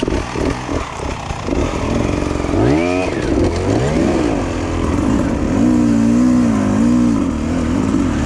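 Enduro motorcycle engine: uneven chugging at first, then revving up sharply about two and a half seconds in and running on with its pitch rising and falling as the throttle is worked.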